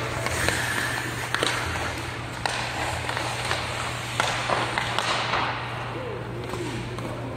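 Ice hockey skates scraping and carving on rink ice, with several sharp clacks of sticks hitting the puck and ice, spaced about a second apart.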